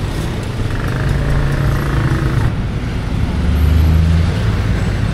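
Street traffic: vehicle engines running close by, with one engine's low hum swelling about three and a half seconds in.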